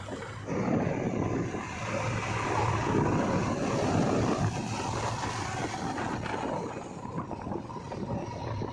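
JCB 3DX backhoe loader's diesel engine running with a steady low hum as it drives on a paved road, with tyre and wind noise; it gets louder about half a second in.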